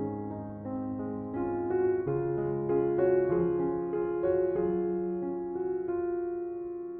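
Slow, calm piano music, single sustained notes over held chords, dying away near the end.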